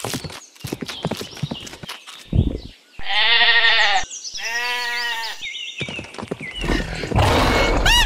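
Two long, wavering bleats from a farm animal, about three and four and a half seconds in, after a run of quick clicks. A low rumbling noise comes in near the end.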